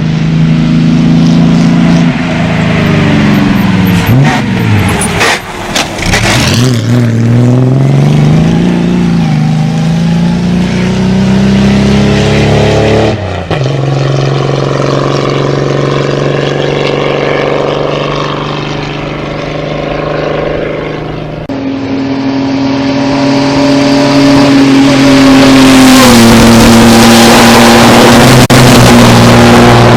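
Vintage racing car engines running loud. The revs dip and climb again a few seconds in, then hold steady. The sound changes abruptly twice, at about 13 and 21 seconds, as one engine gives way to another.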